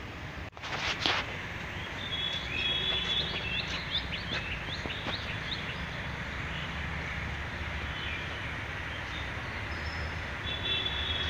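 Outdoor city ambience: a steady low traffic rumble with small birds chirping in quick short calls for a few seconds, and a brief knock about a second in.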